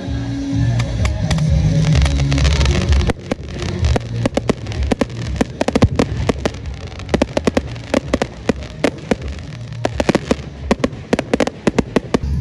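Airshow battle pyrotechnics: a low rumble for the first three seconds, then a rapid, irregular string of sharp bangs and crackling firework reports.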